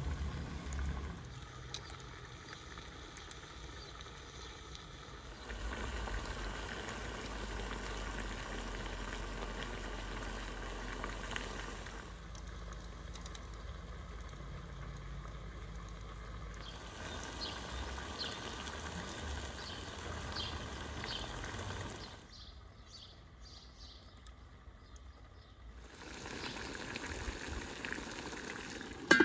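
Outdoor cooking ambience: a meat and vegetable stew simmering in a cast-iron kazan over a wood fire, with a low rumble underneath. The background changes abruptly several times, and a few light clicks come partway through.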